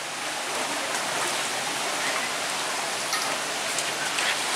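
Rain falling steadily, a dense even hiss, with a few light ticks in the second half.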